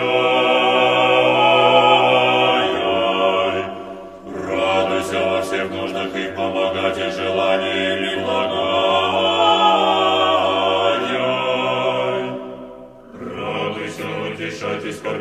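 Orthodox church choir singing an akathist in Church Slavonic, chanting the 'Rejoice' invocations in held chords over a sustained low bass note. The singing breaks off briefly about four seconds in and again near the end, between phrases.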